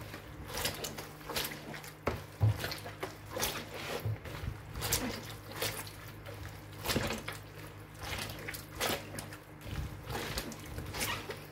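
Wet squelching and squishing of a hand kneading chopped, peeled tomatoes in a plastic bowl, pressing the juice out, in irregular squeezes several times a second. A steady low hum runs underneath.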